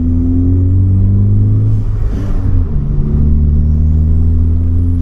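Ford Focus ST's turbocharged 2.0 EcoBoost four-cylinder pulling under acceleration, its pitch rising with a faint climbing turbo whistle. About two seconds in there is a gear change with a brief rush of air, then the engine pulls again from lower revs in the next gear.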